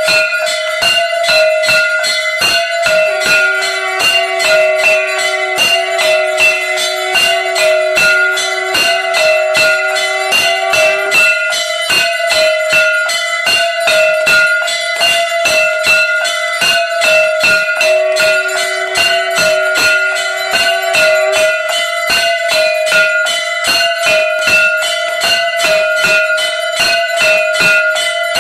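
Temple bells and a hand-held brass gong (jhalar) struck rapidly and without pause during aarti, each stroke ringing on in one steady metallic tone. A lower held tone joins in twice, for several seconds each time.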